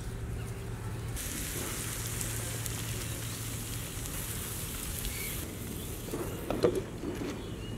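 Pancake batter sizzling on a hot buttered griddle (tawa). The sizzling starts about a second in and stops abruptly a few seconds later. A few sharp metal clinks follow near the end as a steel lid is set on the pan.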